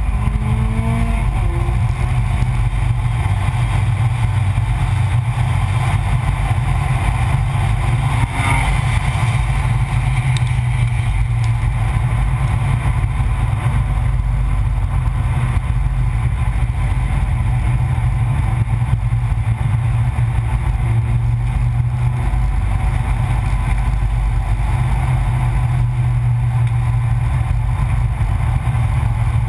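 A car driving at speed on a race track, heard from a camera mounted low on its exterior. Engine, tyre and wind noise blend into a steady low rumble, with a brief rising note in the first couple of seconds.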